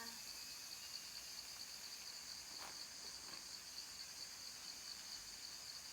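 Cicadas calling in chorus: a faint, steady, high-pitched drone.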